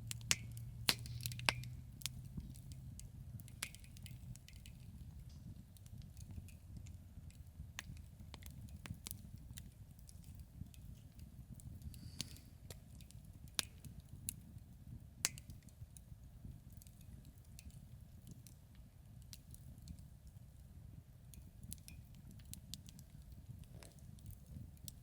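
Wood campfire crackling: scattered sharp pops and snaps, several close together in the first couple of seconds, over a low steady rumble. A low hum fades out about two seconds in.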